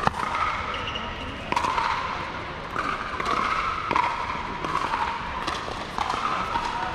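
Pickleball paddles hitting a hollow plastic pickleball back and forth in a rally: a series of sharp pops, about one every one to one and a half seconds.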